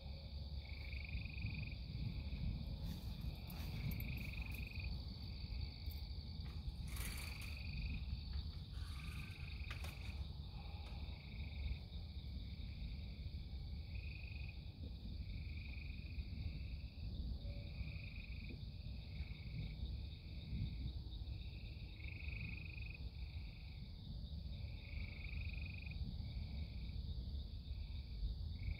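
Frogs calling at night: short trilled calls repeating about once every second or so, over a steady high-pitched drone and a low rumble, with a few faint clicks in the first ten seconds.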